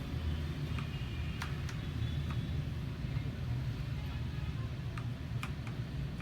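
Steady low rumble of street traffic, with a few scattered, irregular light clicks of mechanical keyboard keys with brown switches being pressed.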